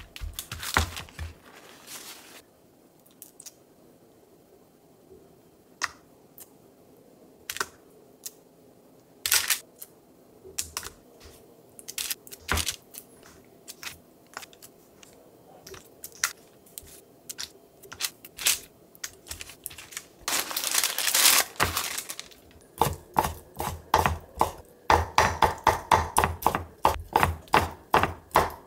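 Chef's knife mincing peeled shrimp on a wooden cutting board: a quick, even run of knocks at about four a second through the last six seconds. Before that, hands rubbing a paper towel at the start, a few small clicks as shrimp are handled, and a brief rustle about 21 seconds in.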